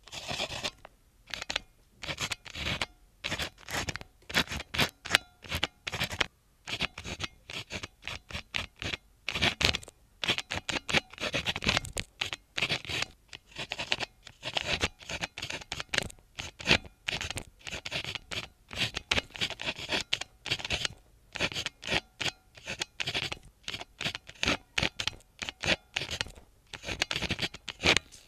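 Pen nib scratching across memo notepaper in short quick strokes, in runs broken by brief pauses, as characters are handwritten.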